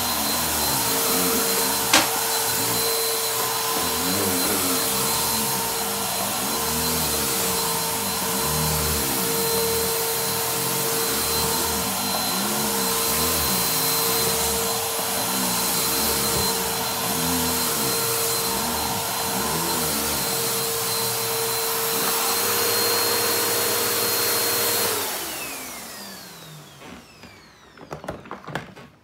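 Upright vacuum cleaner running steadily with a whine as it is pushed over a rug, with one sharp click about two seconds in. Near the end the motor is switched off and winds down with a falling whine.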